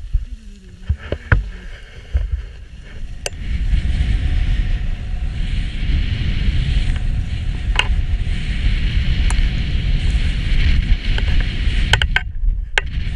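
Skis sliding and scraping over packed snow on a downhill run, with wind rushing on the microphone; quieter for the first few seconds, then steady from about four seconds in. Several sharp clicks cut through it.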